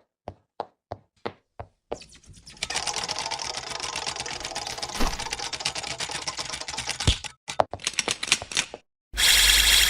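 Rapid clicking: a few evenly spaced clicks, then a dense run of fast clicks lasting about five seconds. The run thins out into scattered clicks and ends in a short loud burst near the end.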